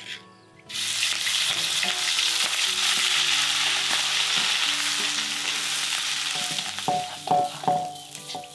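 Ground spice paste with lemongrass hitting hot oil in a steel wok, sizzling loudly at once and then slowly dying down. Near the end a metal spatula stirs it, clinking against the wok about three times a second.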